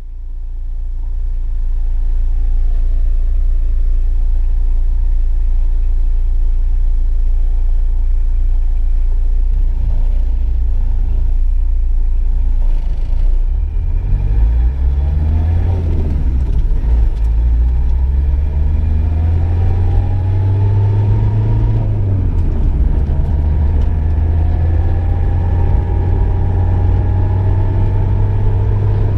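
Car driving, its engine and road rumble fading in and then running steadily. About halfway through, the engine speeds up, its pitch rising and falling back several times.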